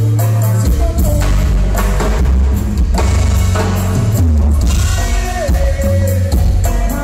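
A live band playing loud, amplified music with accordion, electric bass, congas and drum kit, and a voice singing over it.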